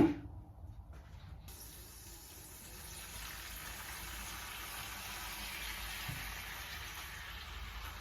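Water running in a steady stream from a tap or valve, starting about a second and a half in, after a sharp knock at the very start.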